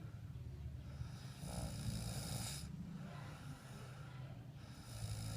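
Quiet snoring in slow breath cycles: a low rattling rumble with a breathy rush that rises about half a second in and lasts about two seconds, then the next breath beginning near the end.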